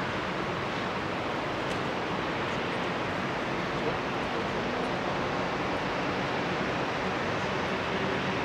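Distant jet engine noise of a Finnair Airbus A320 on its landing roll just after touchdown: a steady rushing roar, growing slightly louder near the end.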